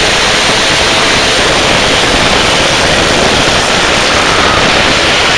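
A pack of four speedway motorcycles, 500 cc single-cylinder methanol engines, at full throttle as they race away from the start and down the straight. The sound is so loud that the microphone is overloaded, turning it into a dense, hiss-like din.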